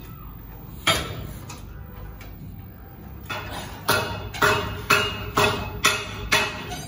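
Sharp metallic clanks from a leg extension machine's weight stack. One clank comes about a second in, then a quick run of six, about two a second.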